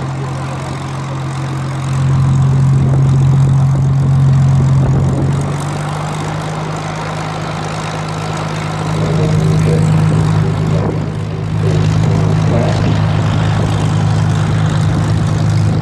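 Propeller-driven Second World War fighter's Rolls-Royce Merlin V12 piston engine running at low power with a steady, deep drone. It grows louder and slightly higher about two seconds in, and again about nine seconds in.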